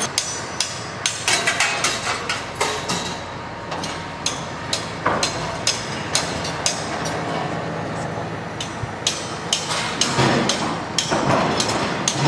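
Repeated sharp clanks and knocks, like metal being struck, coming irregularly about one or two a second over a steady machinery hum.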